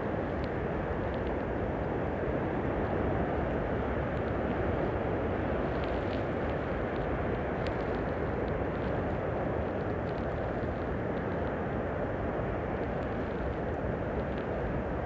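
Heavy storm surf breaking against sea cliffs, a steady roar, with storm wind buffeting the microphone.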